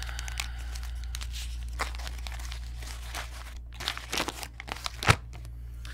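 A small folded sheet of paper being unfolded by hand, crinkling and rustling, with a cluster of sharper, louder crackles in the last two seconds.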